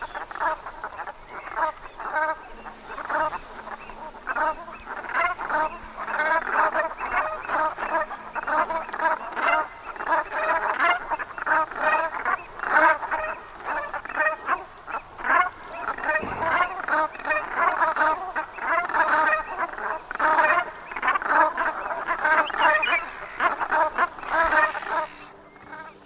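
A flock of brent geese calling: many short, overlapping honks, several a second, in a continuous chorus that starts suddenly and dies away shortly before the end.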